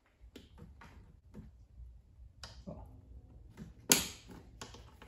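Hands working on the underside of a car seat: rustling of padding and fabric and light plastic knocks, with one sharp click just before four seconds in.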